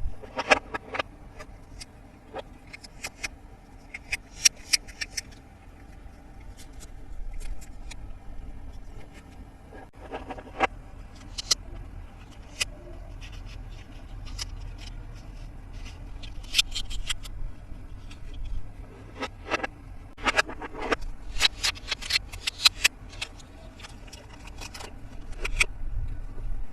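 Hands handling the plastic pieces and packaging of a Peppa Pig Treehouse toy playset: scattered clicks and short rustles, some in quick clusters, over a steady low background rumble.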